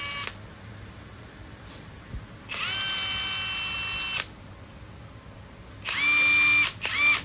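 Panasonic 10.8 V cordless driver spinning with no load in several short trigger bursts. Each burst is a steady motor whine that rises briefly in pitch as it spins up. One burst about a second in runs longest, and a shorter, louder one comes near the end.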